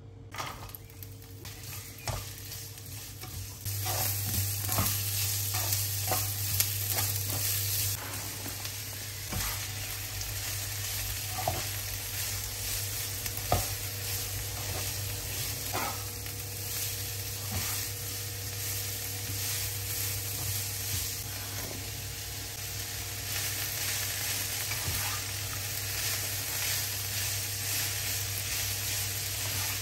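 Shredded cabbage, carrot and green pepper sizzling in oil in a nonstick frying pan as a slotted spatula stirs and tosses them. Scattered knocks of the spatula against the pan come over a steady sizzle that grows louder about four seconds in.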